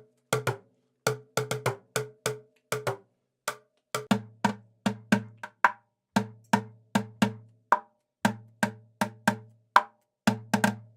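Buckets drummed by hand in a steady street-drummer rhythm, a few sharp hits a second. The first few seconds are higher-pitched hits; after a brief thinning near the four-second mark come deeper, booming hits.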